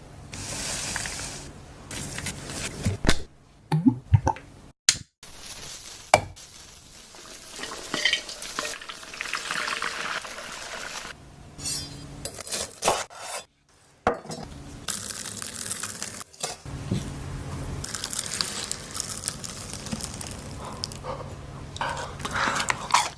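Food being cooked: utensils clinking and scraping in a pan and stirring, with stretches of sizzling frying. It comes as short clips cut together, with a few sudden brief drops to silence.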